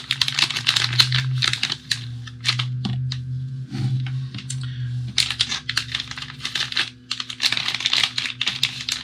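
Plastic packaging being handled, crinkling and crackling in quick clusters of small clicks, over a steady low hum.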